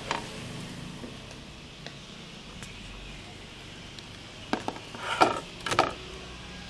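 A few light knocks of a wooden spatula and a ceramic plate as a folded dosa is lifted off a nonstick pan onto the plate. There is a louder cluster of clatters about five seconds in.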